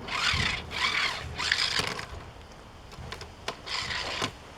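Die-cast Matchbox Hummer H3 toy truck pushed across a hard surface, its wheels rolling and scraping in four short bursts of about half a second each, with a few clicks.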